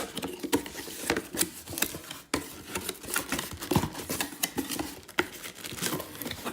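A tool's box and its packaging being opened by hand: a quick run of clicks, snips and rustles.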